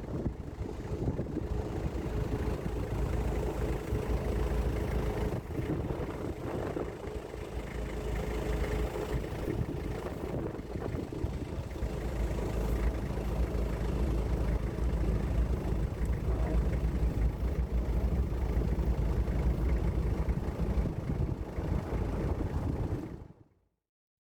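Car driving: a steady engine and road rumble with a faint steady hum, which cuts off suddenly near the end.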